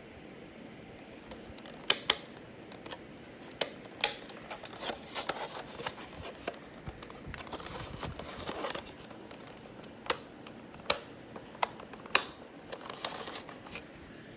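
Handling noise: a series of sharp clicks and knocks of hard objects, about eight in all, in two clusters, with rustling between them.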